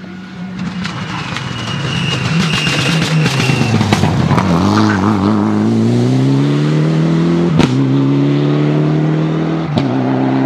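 Rally car engine passing and accelerating hard down the stage, its pitch climbing steadily through the gear. Twice, at about three-quarters of the way through and again near the end, there is a sharp crack as the pitch drops at an upshift.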